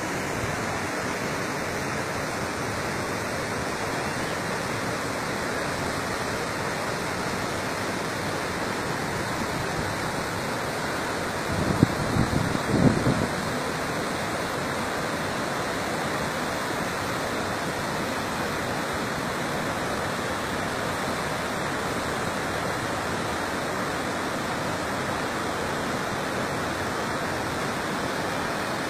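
Waterfall cascading over rocks: a steady rush of white water. About twelve seconds in, a second or so of low thumps stands out as the loudest moment.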